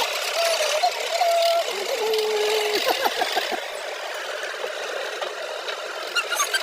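Small electric motor whirring, its pitch stepping up and down, with light clicking and clatter.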